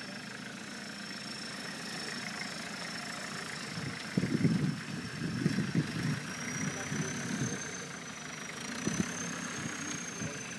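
UMM Cournil Faro 4x4's engine idling steadily, with a thin high whine that rises slightly about halfway through. Louder uneven low bursts come through about four to six seconds in and again near nine seconds.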